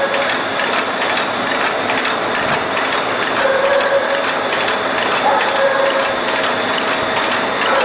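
Toilet-paper roll cutting machine running: a steady, dense mechanical clatter of rapid clicks, with a short tone rising out of it a few times.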